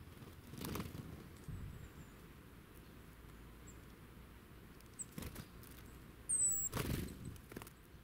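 Small woodland birds, a Eurasian nuthatch and a blue tit, landing and hopping close by, making several short rustling scuffles in dry leaves, the loudest near the end. A brief thin high call comes just before the loudest scuffle.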